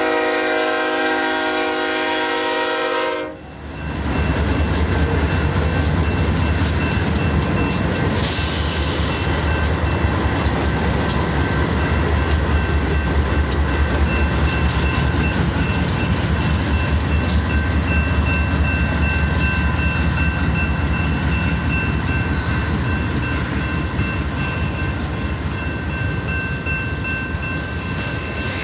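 A BNSF freight locomotive's five-chime horn holds a chord that ends about three seconds in. Then the double-stack container train rolls past, with a heavy rumble and a constant clickety-clack of wheels over the rail joints.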